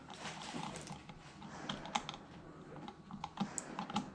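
Irregular light clicks and taps of a plastic light-switch cover plate being handled and fitted over the switch.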